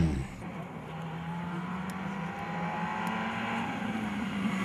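A rally car's engine approaching, its note steady and slowly getting louder.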